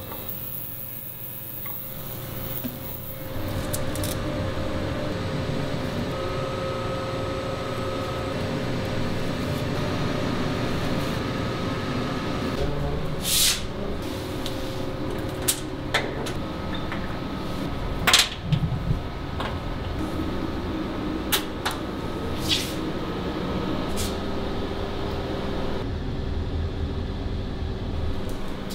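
Steady hum of a UV curing chamber running, with a scattering of sharp clicks and clatters from about halfway on as its door and metal wire racks are handled.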